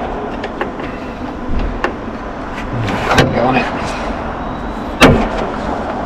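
Metal hand tools clicking and knocking against the engine while a tight compressor bolt is worked loose with a long bar, over steady background noise. There are a couple of duller thuds about three seconds in and one sharp, loud metal knock about five seconds in.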